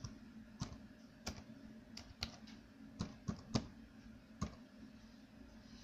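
Computer keyboard keys pressed one at a time, about ten separate clicks at an uneven, unhurried pace, as a word is typed in, ending a little after four seconds in.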